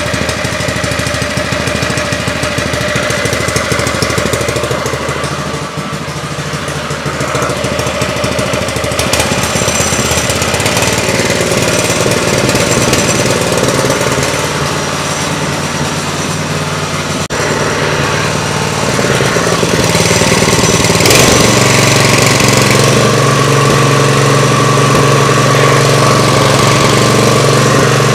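Brand-new Predator 212cc single-cylinder OHV engine on a lawn edger, running steadily at about mid throttle on its first break-in run. About three-quarters of the way through, its note steadies and gets a little louder.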